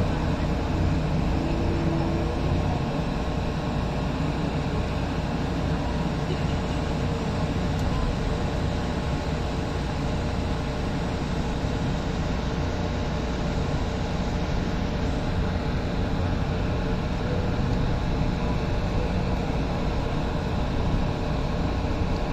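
Tren Ligero light-rail train running along the line: a steady, even rumble.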